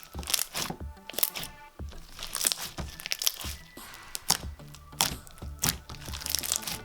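Thick slime being squished and pressed by hand, giving irregular sharp crackles and crunchy pops, over background music.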